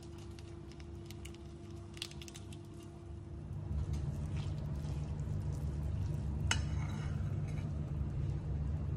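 Cooked Indomie instant noodles being stirred and mixed with seasoning in a pan: soft wet squishing, with sharp clinks of the utensil against the pan about two seconds in and again about six and a half seconds in. A low rumble grows louder about three and a half seconds in.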